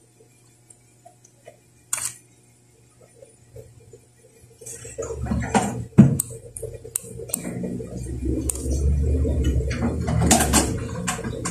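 Handling noise on a handheld phone's microphone: a few faint clicks, then from about halfway in a low rumble with scattered clicks and knocks.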